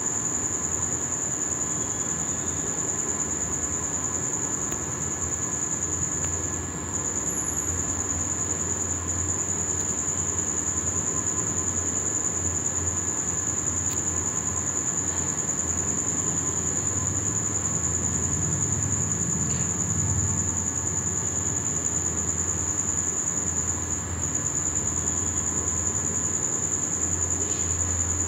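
Crickets chirring in a steady, unbroken high-pitched chorus, with a low rumble underneath that grows stronger about a third of the way in.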